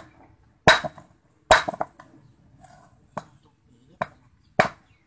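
Claw hammer striking a rock on a concrete slab: five sharp knocks at uneven spacing, coming quicker near the end, as the stone is chipped apart.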